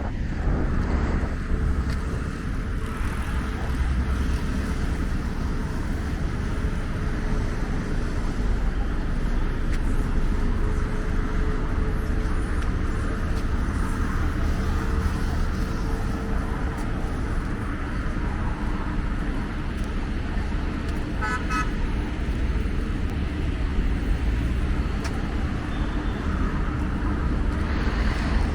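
Busy city road traffic: vehicles running past with a steady low rumble, a steady hum through the first half, and a quick run of short beeps, like a horn toot, about three quarters of the way through.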